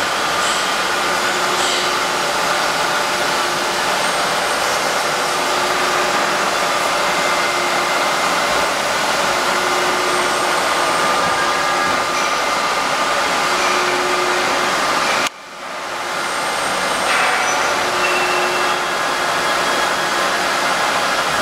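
Droop & Rein FWL 1403 CNC bed milling machine running, a loud, steady whirring hiss with faint steady tones in it. About fifteen seconds in it drops away abruptly and builds back up within a second or so.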